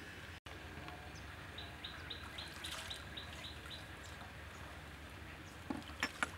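A bird calling in a quick run of about nine short, high, evenly repeated notes, over a steady background hum of the forest. A few sharp clicks come near the end.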